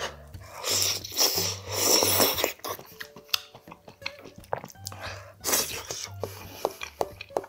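A person loudly slurping long strands of cooked greens from a spicy stew, in two long slurps in the first couple of seconds. Then comes wet chewing with many short clicks, over soft background music.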